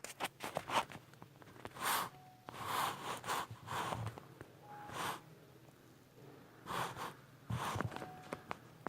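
A person's short, breathy snorts, repeated at irregular intervals, with a few light clicks near the start.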